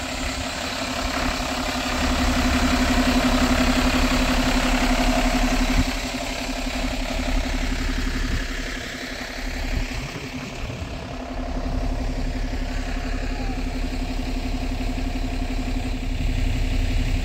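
A vehicle engine running steadily, with a constant hum over a noisy rumble. It drops a little in level around the middle, then picks up again.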